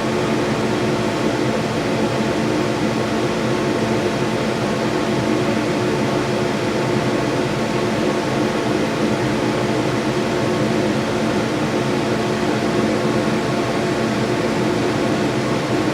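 Laser engraving machine running as it engraves a padlock: an even, fan-like hum with several steady tones, unchanging throughout.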